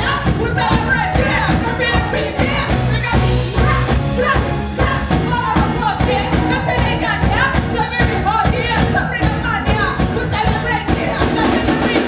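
Live band playing a rock/pop song, with two female vocalists singing over drum kit, electric guitar and bass guitar.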